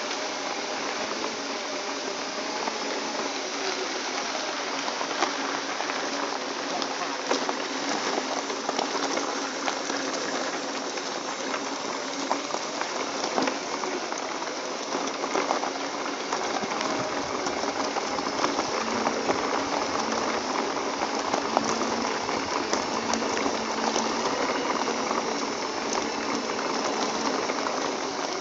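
Segway personal transporter rolling along a dirt trail: a steady rushing, crackling noise of tyres on grit, with small clicks scattered throughout.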